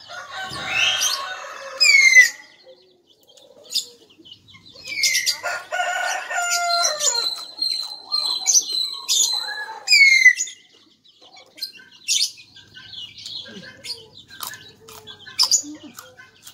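A rooster crowing, with small birds chirping in short falling calls and the close clicks and crunches of chewing.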